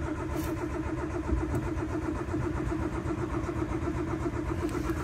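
Starter motor cranking the Daewoo Matiz's 0.8-litre three-cylinder engine on a cold start, with a steady, even chugging rhythm. The engine does not catch: it is reluctant to start after standing for several days.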